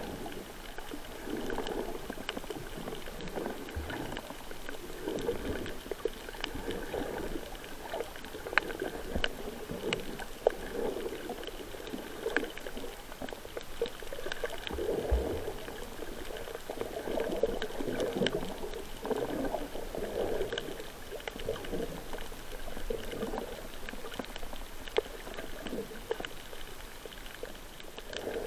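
Underwater sound through a submerged camera over a coral reef: a muffled churning of water that swells and fades every second or two, with scattered sharp clicks throughout.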